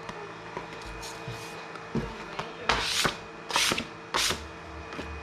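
Small objects being moved around and set down on a desk: a couple of light knocks about two seconds in, then three short scraping sounds close together.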